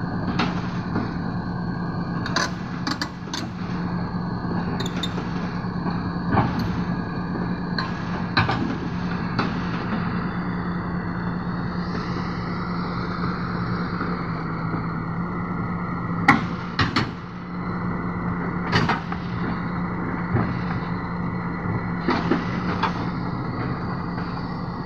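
SANY SY215C crawler excavator's diesel engine running steadily under load, with sharp metal clanks and knocks at irregular moments, a few louder ones past the middle, as its steel tracks and bucket work on a lowbed trailer's steel deck.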